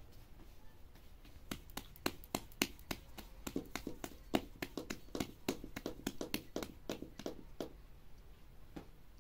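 A quick, irregular run of sharp taps or knocks, about four a second. It starts about a second and a half in and stops near the end, with one last knock after a short gap.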